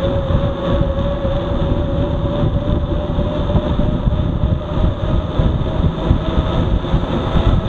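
Mountain-bike tandem riding fast on asphalt: steady wind rumble on the bike-mounted camera's microphone, with the knobby tyres humming in a single tone that rises slowly in pitch.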